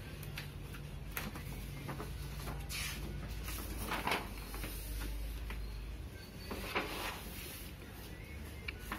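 Stiff chart-paper flaps of a layered paper body model being turned over by hand: a few brief swishes of paper, the loudest about four seconds in and another near seven seconds, with light taps and rustles between.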